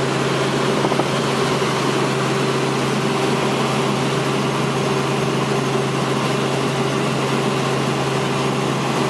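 Helicopter in flight heard from on board: a steady engine and rotor drone with a constant low hum and a second, higher hum over a wide rushing noise.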